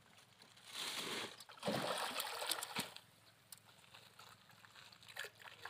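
Water splashing at the edge of the bank as hands dip into it and throw in bait: two splashy bursts about one and two seconds in, then a few faint small clicks.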